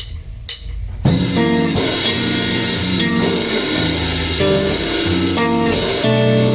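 Grind/noise music recording. A low rumble with sharp clicks about twice a second gives way, about a second in, to loud, dense guitar chords and drums.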